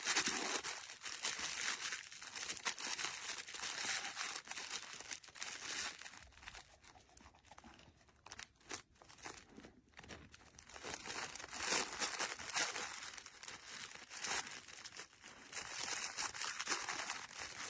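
Crinkling and rustling of a fabric chip-bag snuffle toy as a dog roots through it for treats, with many small clicks and scuffs. It comes in louder stretches and eases off for a few seconds in the middle.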